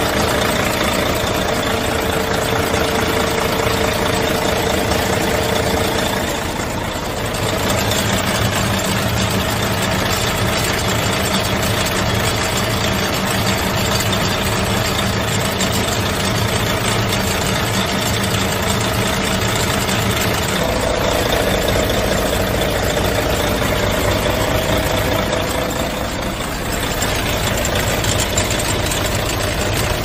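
Mercedes-Benz OM 501 LA V6 turbo diesel of an Actros truck idling steadily, heard close up at the engine bay. A steady whine rides over the engine note for the first six seconds and again from about twenty to twenty-six seconds in.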